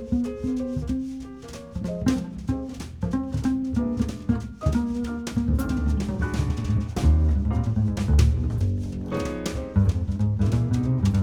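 Instrumental background music: a drum kit keeping a beat under a bass line and other pitched instruments.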